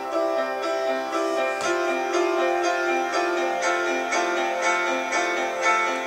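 Instrumental music from an Apple MacBook Air TV ad, playing through a MacBook's built-in speakers: a keyboard-like melody of evenly repeated notes.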